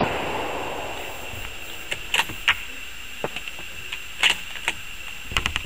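A .308 rifle shot, a sharp crack right at the start that fades out over about a second. It is followed by scattered light clicks and rattles.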